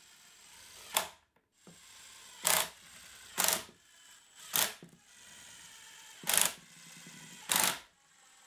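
Makita cordless impact driver driving screws in six short bursts of its hammering rattle, a second or so apart.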